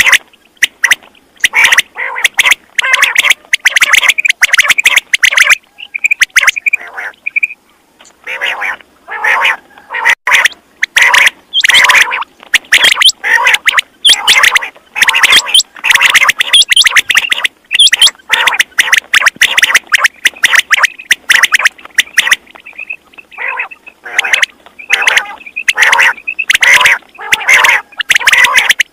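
Quail calling: a fast, unbroken stream of short notes, many overlapping, that thins briefly about six to eight seconds in.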